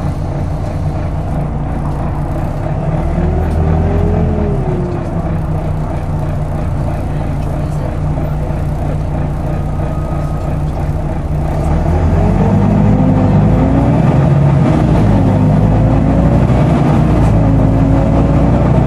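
Volvo B9TL double-decker bus's engine and loud cooling fan running, heard from the upper deck as the bus drives. About twelve seconds in the sound grows louder as the bus pulls harder, with whining tones rising and falling through the gear changes.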